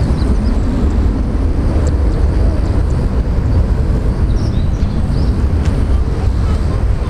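Boeing 737-400's twin CFM56-3 turbofan engines at climb power just after takeoff. The airliner makes a loud, steady low rumble as it climbs away.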